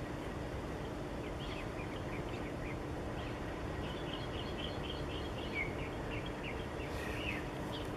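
Small birds chirping in quick, short calls over a steady low rumble and faint hum of outdoor ambience.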